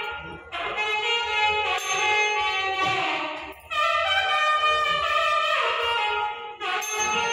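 Music led by a loud, reedy wind instrument playing a melody in long held notes, with brief breaks between phrases just after the start, about halfway through and near the end.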